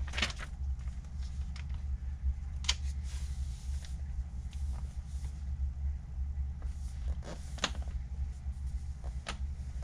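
Steady low hum with a few scattered light clicks and taps.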